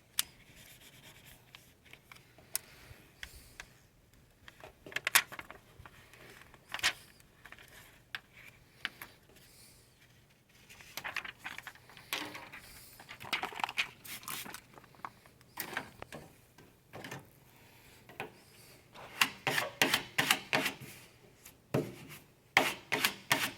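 Hands rubbing and scraping at vinyl lettering and its paper masking tape, with scattered taps and clicks. Rougher bursts of rubbing come about halfway through and again near the end.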